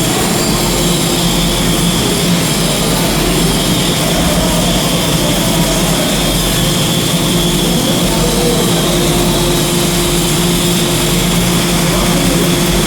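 Stick (SMAW) welding arc burning steadily, a continuous crackling sizzle without breaks, over a steady electrical hum from the welding machine.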